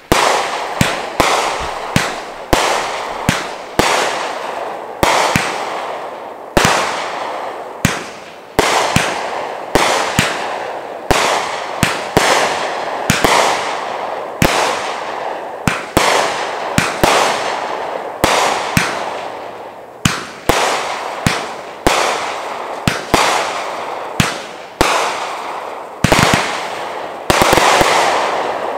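Bright Star 'Rounders' 500-gram repeater cake firing shot after shot, a sharp bang about every half second to second, each trailing off in a fading rush of noise as the brocade and strobe breaks burn out. A quick cluster of several bangs comes near the end.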